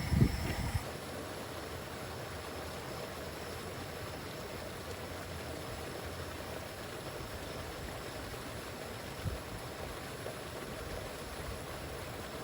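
Steady rush of flowing river water, the river swollen after heavy rain. A brief low bump is heard in the first second.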